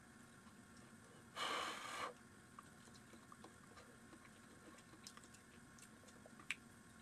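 A man chewing a mouthful of food with quiet wet mouth clicks, and a short breathy puff of air about a second and a half in. One sharper click comes near the end.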